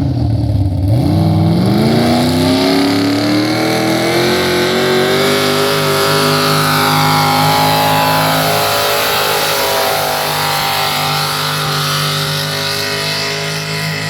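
A Ford pulling tractor's engine under full load pulling the sled. It revs up sharply about a second in, holds at high revs, then eases off a little in the last few seconds.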